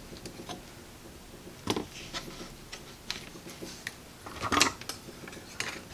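Scattered light metallic clicks and ticks of a hand tool working a capacitor's wire lead, looping it around a connection in a radio chassis. The two loudest clicks come about two seconds in and near the end.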